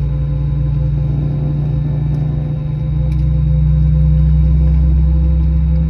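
Steady cabin drone inside an Airbus A321 standing at the gate before engine start: the air-conditioning airflow with a few steady hum tones, swelling a little midway.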